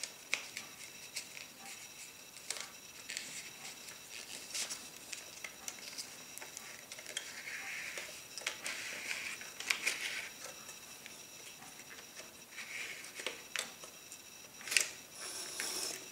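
Small clicks, taps and scrapes of plastic and metal as a 120 film spool fitted with adapters is handled and seated in an old Kodak SIX-16 camera and its winding key end is worked, with a sharper click about 15 seconds in.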